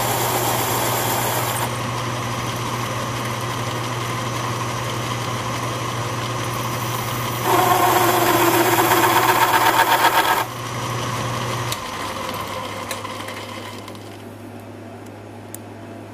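Small Atlas 618 metal lathe running with a steady motor hum while a tool bit plunges a snap ring groove into the turning steel shaft. The cut grows louder, with a pulsing chatter, from about 7 to 10 seconds in. Near 12 seconds the motor is switched off and the lathe winds down, leaving a few small clicks.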